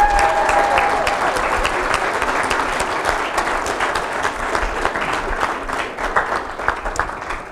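Wedding guests applauding, a dense patter of many hands clapping, with a drawn-out cheer from a voice right at the start; the clapping thins out near the end.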